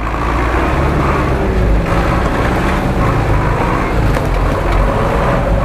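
Engine of a GAZ-66-based off-road truck on large mud tyres running steadily as it crawls through mud, a low rumble with a steady whine above it. A sharp click about four seconds in.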